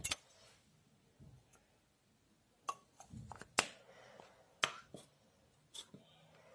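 Close handling noises: about six sharp clicks spread over the few seconds, with faint rustling between, from a lipstick and the phone being handled right at the microphone.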